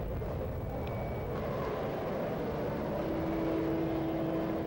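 Railway station ambience: a steady, dense rumble of background noise. A sustained tone comes in about halfway through.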